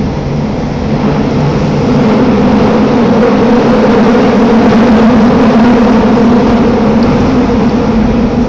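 Toei Oedo Line linear-motor subway train running through a tunnel, heard from inside the car: a loud, steady rumble with a low hum, growing louder about a second or two in.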